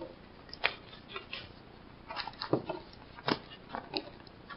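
Foam number pieces being pushed out of a foam puzzle mat by hand: a string of short squeaks and soft taps of foam rubbing against foam.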